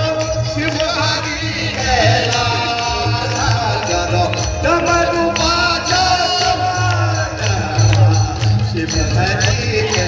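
Hindu devotional music played live and loud through stage loudspeakers: a singer's melody over accompaniment with a heavy, pulsing bass beat.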